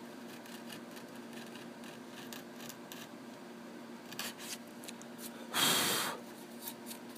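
Lie-Nielsen router plane's blade paring thin shavings from a shallow rabbet in a narrow board: faint scraping and small ticks over a steady low hum. About five and a half seconds in comes a brief, loud rush of noise.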